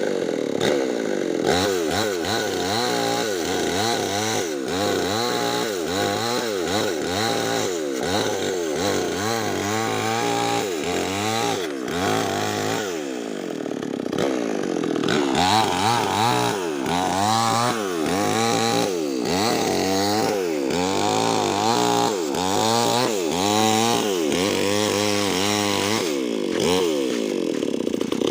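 Nixon petrol chainsaw with a 25-inch bar cutting lengthwise through a Medang log, its engine speed rising and falling about once a second as it works through the wood. Around the middle it runs steadier for a couple of seconds.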